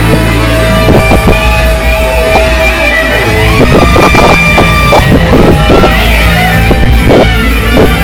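Live band music, loud, with a heavy steady bass line under repeated drum hits and sustained instrument notes.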